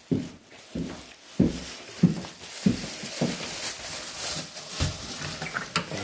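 Footsteps walking across a hard floor at a steady pace, a little under two steps a second, then a sharp click near the end as a door latch is worked and the door opened.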